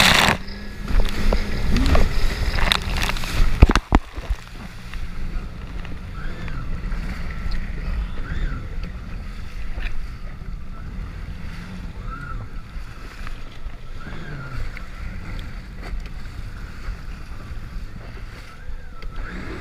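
Jet ski running across open water, its engine hum mixed with rushing water, spray and wind on the microphone. The first four seconds are loud, with splashing and sharp knocks as the hull hits waves, then it settles to a quieter, steady engine hum with water rushing past.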